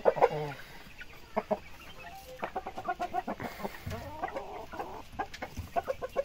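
Chickens clucking: a run of short, repeated clucks.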